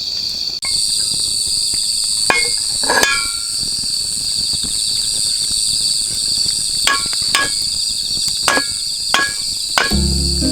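A hammer striking metal stakes in a series of sharp ringing blows, in pairs with pauses between, the typical sound of tent pegs being driven. Insects shrill steadily throughout, and music comes in near the end.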